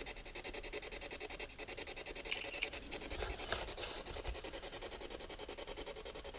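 Quiet room tone with a steady hiss, and a few faint short noises about two to three and a half seconds in.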